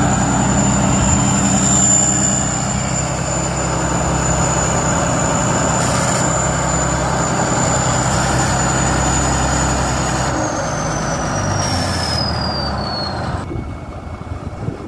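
Combine harvester running loud and steady, a high whine over the engine. About ten seconds in the whine slides down in pitch, and the loud running drops away shortly before the end.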